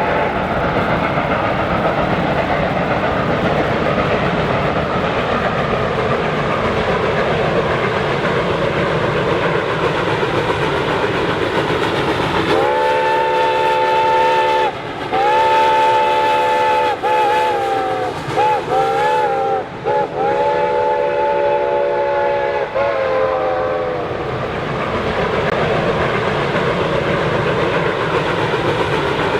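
Reading & Northern 425 steam locomotive's whistle sounding a chord, blown about halfway through as two long blasts, a few short wavering toots and a final long blast, over the steady rumble of the train running.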